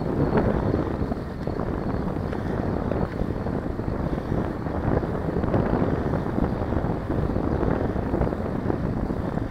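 Steady wind noise buffeting the microphone of a Mobius action camera on a moving bicycle, with the shake of the ride along the road.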